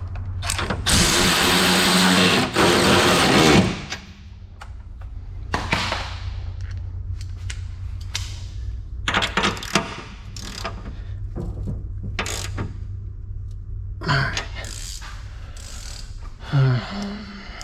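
Hand tools and suspension hardware being worked on a car's rear control arm bracket: a loud clattering rush for about three seconds near the start, then scattered metal clicks and knocks like a ratchet wrench and bolt being handled.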